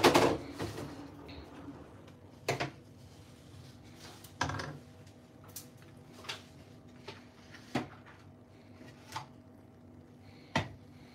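Kitchen clatter as containers and a utensil are handled: a loud knock at the start, then a string of separate lighter knocks and clicks every second or two, over a faint steady hum.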